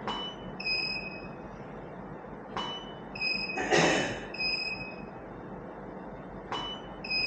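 Three camera shots, about three to four seconds apart: each one a sharp click followed by short high electronic beeps, the studio flash signalling it has recharged. A brief hiss-like burst sounds near the middle.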